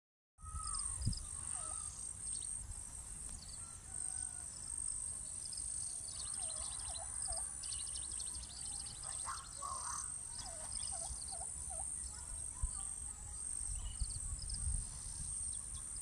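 Several wild birds calling: short downward-sliding whistled notes, often in quick runs of three or four, and thin high chirps. Beneath them run a steady high-pitched buzz and a low rumble of wind on the microphone.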